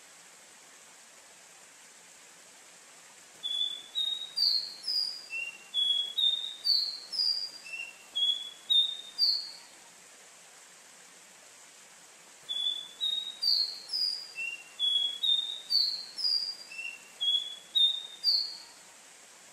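Caboclinho, a Sporophila seedeater, singing two long phrases of quick, clear, rising whistled notes. The first starts about three and a half seconds in and the second about twelve seconds in, each lasting about six seconds, over a steady faint hiss.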